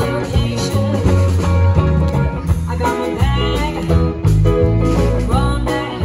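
Live band playing guitar-led music: electric guitar lines with bent notes over a bass line and a steady drum beat.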